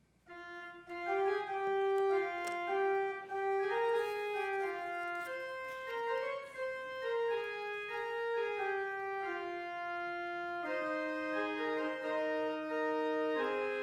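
Church organ playing the introduction to a hymn: held chords with a moving melody, starting just after a moment of silence.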